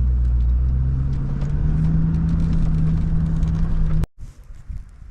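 A motor vehicle's engine running while driving, its pitch rising steadily for a couple of seconds. The sound cuts off abruptly about four seconds in, leaving a much quieter outdoor background.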